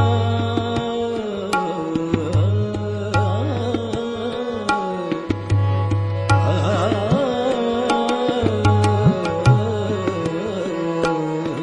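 Background music in South Indian classical style: a gliding melodic line over sustained tones, with frequent hand-drum strokes.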